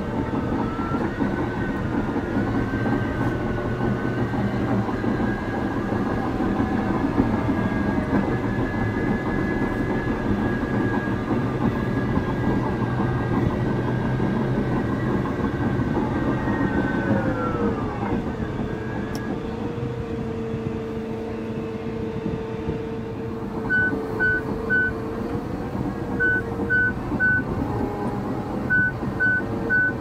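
CAT D6 bulldozer working: its diesel engine runs steadily with a drivetrain whine that glides down in pitch a little past halfway and settles on a lower tone. In the last quarter a high warning alarm sounds in repeated sets of three short beeps.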